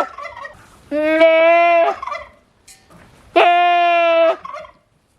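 A milking doe goat screaming: two long, loud, steady calls about two and a half seconds apart, with the end of a third at the very start. She is upset because her morning milking is late.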